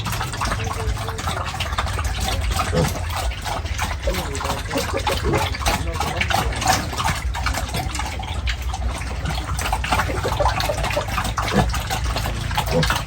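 Water gushing and splashing, with many small splashes and a low steady rumble underneath.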